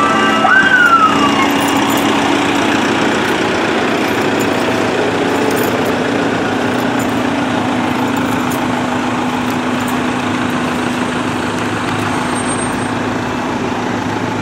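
Siren winding down: its tone slides downward and stops about a second in. Then the steady drone of a Volkswagen Crafter ambulance's diesel engine and road noise heard from on board.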